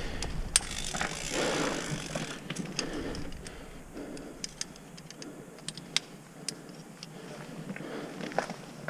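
Footsteps on a gravel path with scattered sharp clicks. There is a louder scuffing rustle from about one to two and a half seconds in.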